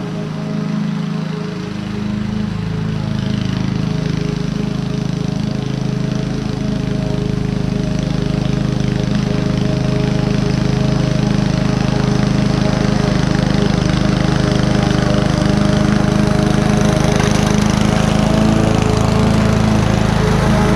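Honda self-propelled walk-behind mower's single-cylinder four-stroke engine running steadily under load as the blade mulches buffalo grass, growing gradually louder as the mower comes closer.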